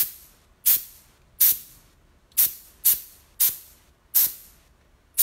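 Short blasts of compressed air from a paint sprayer fed by an air compressor at about 25 PSI. There are about seven quick hisses, each starting sharply and fading fast, spaced irregularly less than a second apart.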